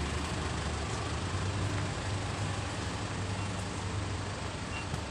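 Steady outdoor background noise: an even low hum under a constant hiss.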